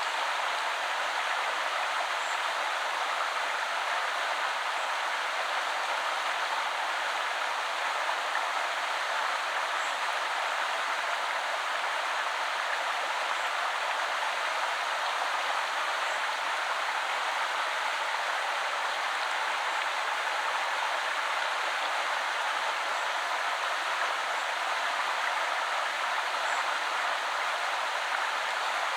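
A woodland river flowing, a steady, even rush of water with no breaks, and faint high ticks now and then.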